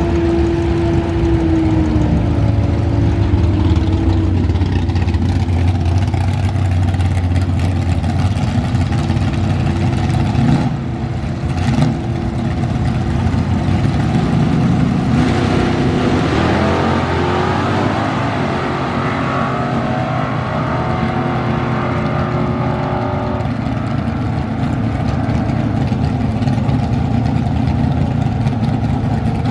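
Drag-race cars' engines at full throttle on a drag strip. In the first few seconds a steady engine note drops slightly in pitch as a car pulls away. A bit past halfway another engine's pitch climbs quickly and then holds as a car accelerates hard.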